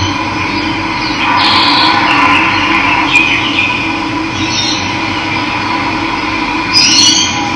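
Running water rushing steadily, with birds chirping over it several times and a louder rising call near the end.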